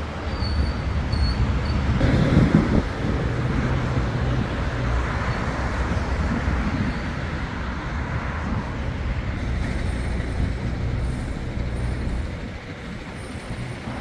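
City street traffic: a steady low rumble of passing vehicles' engines and tyres, swelling louder about two seconds in and easing off near the end.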